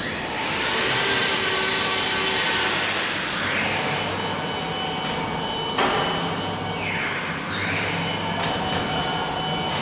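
CNC wood router with a 6 kW HSD spindle running and cutting, a steady high whine under a cutting noise that swells and eases several times as the tool works, with a sudden sharp change about six seconds in.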